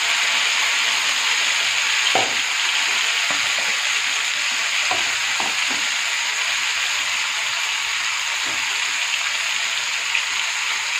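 Marinated chicken leg pieces frying in hot mustard oil in a frying pan: a steady sizzling hiss, with a few faint soft knocks in the first half.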